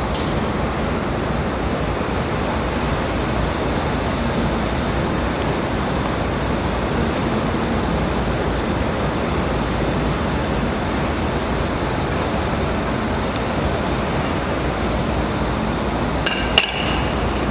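Steady machine noise with a thin, high, constant whine, from a handheld laser welding machine running. A few sharp metallic clinks come near the end.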